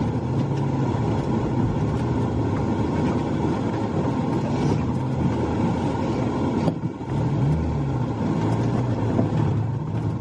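Peugeot 306 Cabriolet's 2-litre 16-valve four-cylinder engine and road noise heard from inside the cabin while driving, with the engine note dipping and then rising again about seven seconds in.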